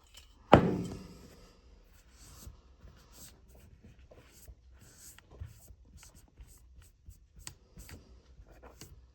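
A single knock about half a second in, then faint, irregular scrubbing and scratching as rust and grime are rubbed off an air tool.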